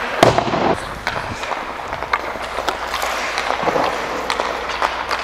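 Ice hockey skates scraping and gliding on rink ice as a continuous hiss, with sharp clicks of sticks and puck now and then and a louder knock right at the start.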